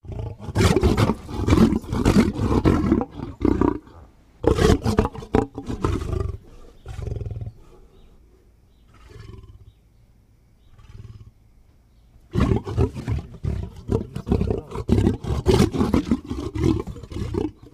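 A lion growling over its kill in loud, rough, pulsing bouts. It goes quiet for a few seconds in the middle, then starts up again.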